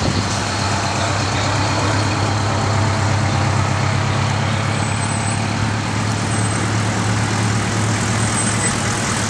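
Fire trucks rolling past at walking pace: the steady low rumble of their big diesel engines, running near idle.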